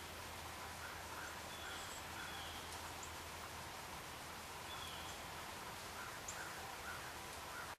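Quiet outdoor brush ambience: a steady hiss with faint, short bird chirps repeating in small groups about every half second. The sound cuts off suddenly at the end.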